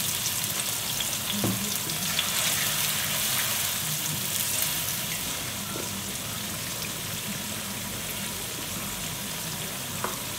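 Onions and garlic sizzling in hot oil in a pan, a steady crackling hiss with a few faint knocks, likely a spoon against the pan.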